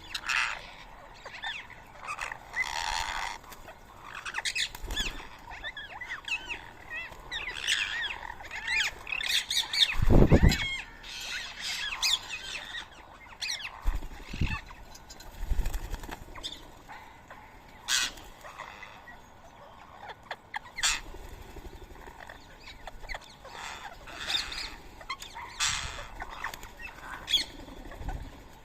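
Rose-ringed parakeets squawking and chirping, with many short calls throughout and a few low thumps of wings or landing birds, the loudest about ten seconds in.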